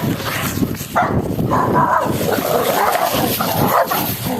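Dogs barking and whimpering, a dense, loud stretch that starts about a second in and lasts about three seconds.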